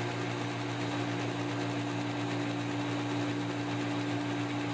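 Belt grinder running steadily with a medium Scotch-Brite belt, a constant motor hum under an even hiss, as a 5160 steel knife blade is smoothed on it to knock down sharp edges before heat treat.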